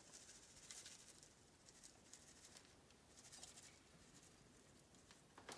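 Near silence, with a faint, soft patter of grated Parmesan cheese shaken from a shaker container onto pasta.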